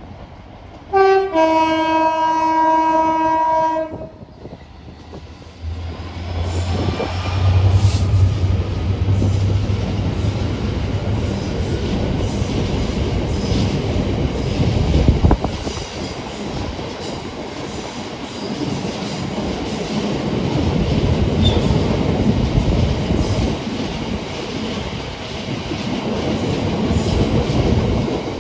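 Freight locomotive sounding its two-tone horn: a short high note, then a longer low one lasting about three seconds. The train then passes close by, first the locomotive's low engine rumble, then the steady rolling and clatter of empty open box wagons over the rails.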